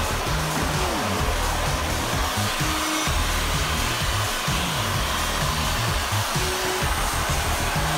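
Vacuum cleaner running steadily, an even motor-and-suction whoosh, with background music playing underneath.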